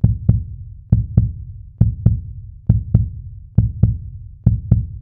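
Heartbeat-like pulse: pairs of deep thumps, lub-dub, repeating evenly about once a second, six pairs in all.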